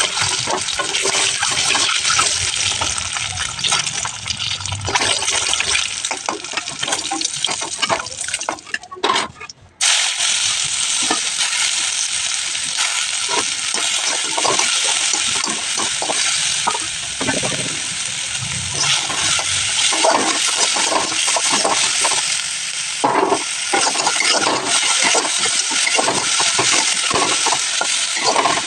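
Food sizzling in hot oil in a pan, with frequent clicks and scrapes of a spatula stirring; the sound drops out briefly about nine seconds in, then carries on.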